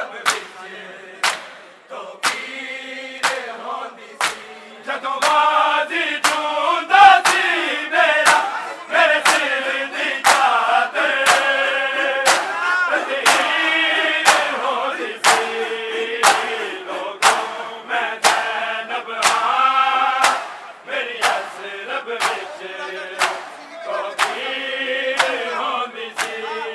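A crowd of men chanting a noha together, with sharp slaps of hands striking bare chests in unison (matam) about twice a second. The chanting gets fuller about two seconds in.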